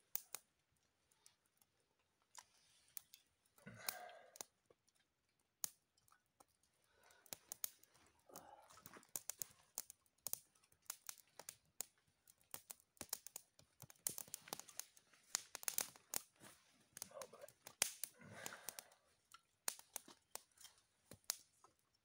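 Dry kindling crackling and snapping: a run of sharp, irregular cracks that come thickest in the second half. Low murmured voices break in a few times.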